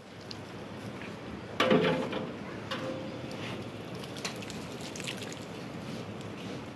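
Light clicks of a small metal tin being shaken and tapped as mustard oilseed cake is sprinkled over chopped straw in a wooden trough, a few taps about a second apart. A brief voice-like call is the loudest thing, about a second and a half in.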